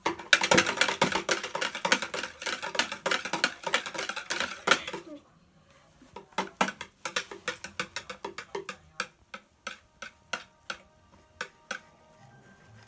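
Fluffy slime making wet clicks and pops as it is worked. A fast, dense crackle for about five seconds, then a short pause, then separate clicks about two or three a second.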